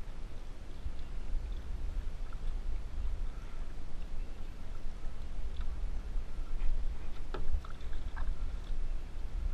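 Paddles of a two-person outrigger canoe dipping and pulling through calm water in a steady rhythm, over a constant low rumble of wind on the microphone. A few short sharp clicks come about seven to eight seconds in.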